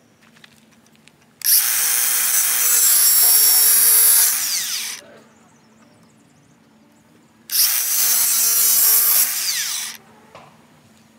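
A handheld power tool cutting metal in two runs, one of about three and a half seconds and one of about two and a half, with its pitch falling as it winds down at the end of each.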